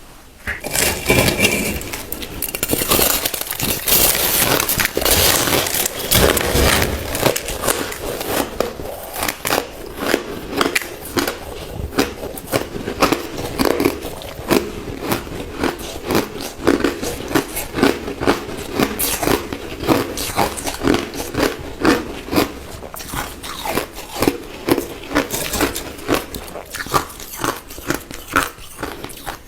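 Crushed ice being bitten and chewed close to the microphone: a dense crackling of breaking ice at first, then steady rhythmic crunching, about one to two crunches a second.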